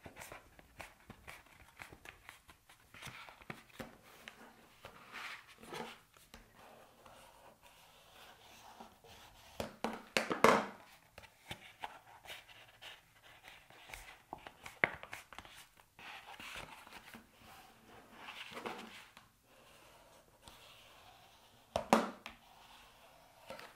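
A cardboard carton being folded, its creases pressed by hand and scraped smooth with the back of a pair of scissors: scattered rustles and scrapes, the loudest about ten seconds in and again near the end.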